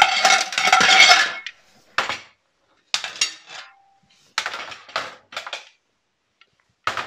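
Stainless steel pots, lids and kitchen utensils clattering against each other: a long loud clatter in the first second and a half, then several shorter metallic rattles and clanks at irregular intervals.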